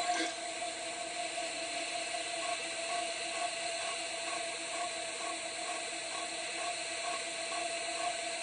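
CNC 6040 milling machine running: a steady whine of a few held tones over a hiss, with a faint tick about three times a second.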